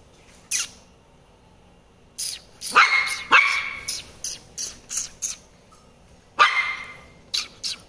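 Shih Tzu puppy barking: a single short bark about half a second in, a run of sharp barks from about two seconds, and another bark a little past six seconds.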